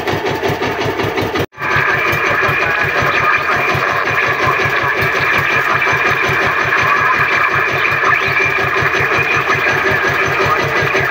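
Small outrigger boat's engine running steadily with a rapid even beat. The sound cuts out for an instant about one and a half seconds in, then carries on unchanged.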